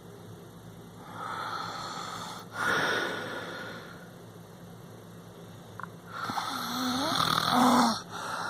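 Snoring in two long breaths, one starting about a second in and the other about six seconds in, with quiet pauses between them. The second breath is the louder, with a wavering low tone in it.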